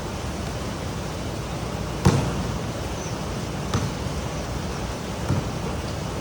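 Steady hiss of heavy rain with three sharp knocks, the loudest about two seconds in.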